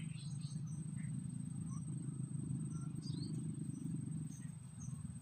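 Rural pond-side ambience: a steady low rumble, a thin continuous high insect whine, and scattered short bird chirps.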